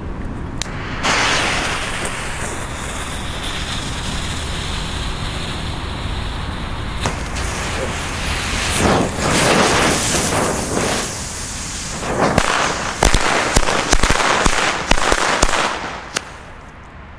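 A ring of firecrackers with preburners: the preburners hiss for several seconds after lighting, then the firecrackers go off one after another in a string of sharp bangs over about seven seconds. Wind rumbles on the microphone.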